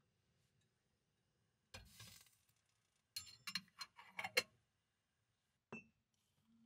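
An aluminium kettle and its lid being handled on a gas hob: a brief scrape about two seconds in, then a quick run of light metal clicks and clinks, and a single ringing clink near the end.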